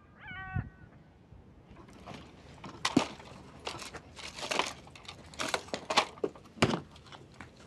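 Rustling and crinkling of packets and rattling of small items as someone rummages through an open case of veterinary supplies, with a few sharp clicks. Just at the start, a brief high-pitched animal call.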